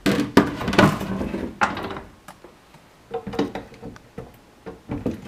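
Cordless drill-driver taking screws out of a wooden kitchen cabinet in short runs, among sharp wooden knocks and clunks, most of them in the first two seconds.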